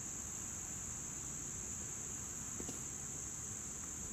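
Steady, high-pitched chorus of insects, droning without a break.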